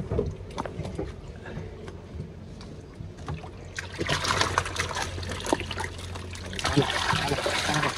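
Water pouring and splashing in two spells, about four seconds in and again near the end, as live fish are tipped out into a canal to be released, over a low steady hum.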